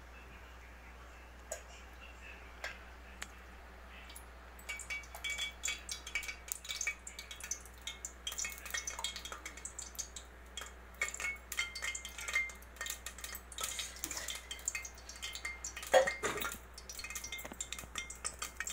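Cooking oil heating in a pressure-cooker pot over a gas flame, crackling with many small irregular pops from about four seconds in, and one louder knock near the end.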